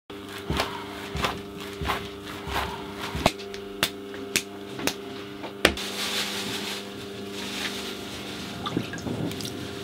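Hands slapping and patting a lump of soft clay, a dull slap about every two-thirds of a second that stops about six seconds in, over a steady low hum.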